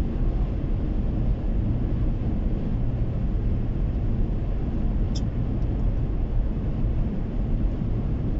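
A car driving at highway speed, heard from inside the cabin: a steady low rumble of tyre, road and engine noise. A brief high click comes about five seconds in.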